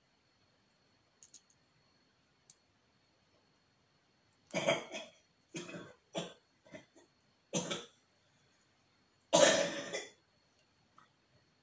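A person coughing: a fit of about six coughs over some five seconds, the last the loudest, after a couple of faint clicks.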